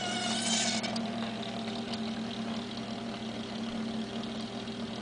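The belt-driven motor of a 1979 LiteLab four-headed spinner light running with a steady hum and a slight whine; a higher whine fades out about a second in.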